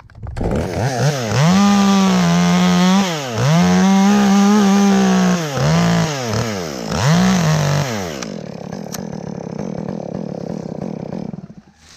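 Two-stroke chainsaw revved to full throttle in several bursts as it cuts through a white oak top, then dropping to idle for about three seconds before shutting off near the end.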